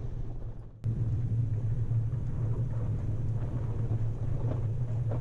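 Steady low rumble of a vehicle's engine and tyres, heard from inside the cab, as it pulls off a rough road onto dirt and gravel. The rumble steps up suddenly about a second in.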